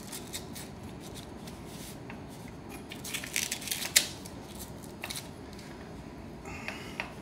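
Hands freeing a Velcro strap and a plastic fuel tank from a paramotor frame: a scratchy rasp about three seconds in that ends in a sharp click near four seconds, then a few lighter clicks.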